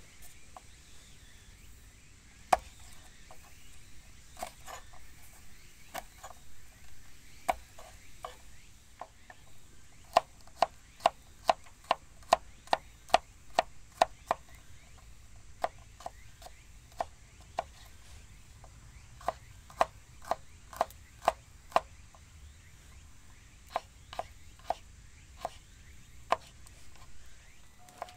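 Folding knife chopping garlic cloves on a wooden cutting board: sharp knocks of the blade on the board, scattered at first, then a quick even run of about two or three chops a second, then spaced out again.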